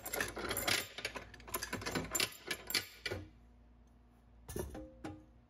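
Metal clatter of a resin-casting pressure pot being opened: wing-nut clamps spun loose and swung off the lid in quick rattling clicks for about three seconds. Near the end come two short ringing metal knocks.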